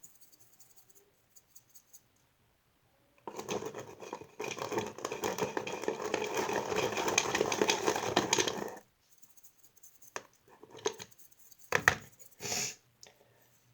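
Dense, scratchy stirring of a thick shampoo-and-flour dough in a bowl as salt is worked in, lasting about five seconds from a few seconds in, followed by a few scattered taps.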